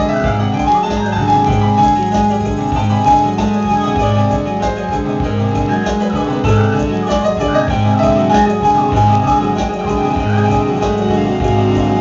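Live instrumental band music led by keyboards, with piano- and organ-like parts over a repeating low riff that keeps a steady pulse.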